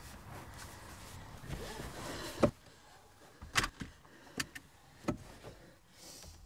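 Clicks and knocks of things being handled inside a car: one sharp click about two and a half seconds in, then several lighter clicks. A low rumble stops at the first click.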